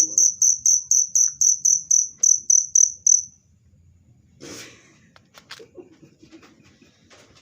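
A cricket chirping in a steady, rapid train of high pulses, about five a second, that stops about three seconds in. A thump about four and a half seconds in and faint clicks follow.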